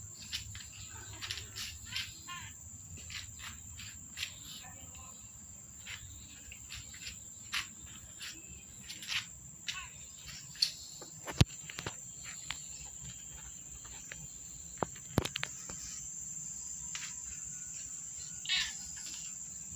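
Outdoor ambience of insects droning steadily at a high pitch, with many scattered short chirps and clicks, and two sharp clicks about halfway and three-quarters of the way through.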